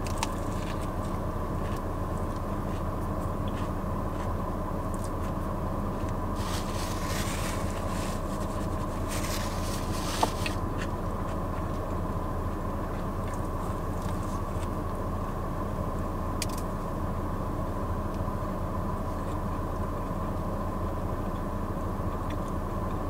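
Steady hum of a parked car's engine idling, heard from inside the cabin. A couple of soft, brief rustling noises come about a third of the way in, with a small click near the middle.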